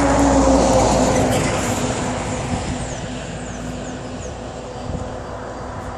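A loaded semi-trailer truck passing close by on the highway: its engine hum and tyre noise are loudest at first, then drop slightly in pitch and fade as it drives away.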